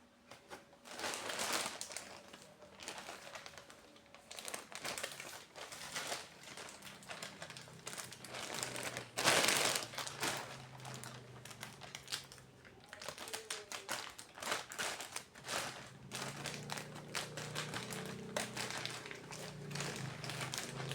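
Packaging crinkling and rustling as it is handled and opened, with irregular clicks and taps, loudest in a longer rustle about nine seconds in.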